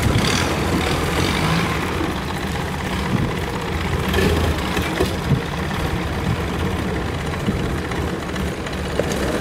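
A heavy engine running steadily, a low rumble with a few light knocks through it.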